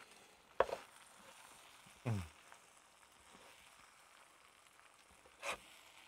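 Faint sizzling of a bacon-topped potato Döppekoche still frying hot in a cast-iron Dutch oven. Two short knocks, about half a second in and near the end, and a brief falling voice 'hm' about two seconds in.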